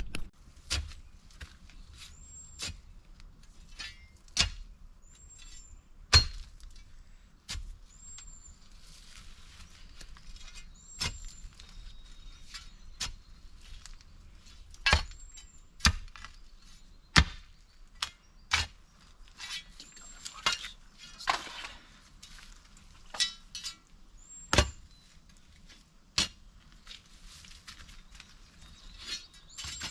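Shovel digging soil by hand: sharp, uneven chops and scrapes every second or two, with a faint high chirp recurring every few seconds.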